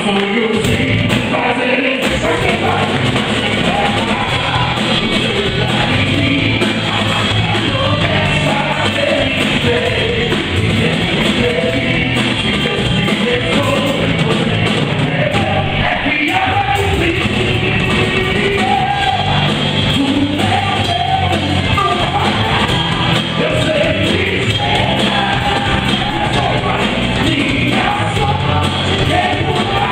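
Live worship band with a singer performing a gospel song, loud and continuous, with a hall's echo.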